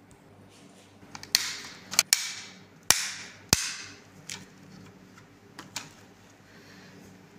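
Sharp clicks and knocks from handling a small diecast model pickup truck. Five loud clicks come in quick succession, several followed by a brief hiss, then a couple of fainter clicks.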